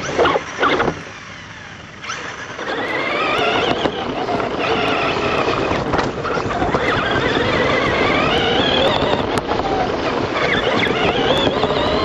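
Radio-controlled trucks' electric motors and gears whining as they race, several high tones rising and falling in pitch with the throttle. The whine builds up about two seconds in, after a short lull.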